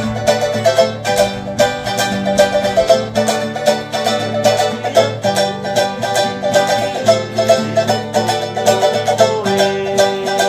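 Acoustic guitar and a small ukulele-type string instrument strummed together in a fast, even rhythm, the small instrument giving a bright, banjo-like twang.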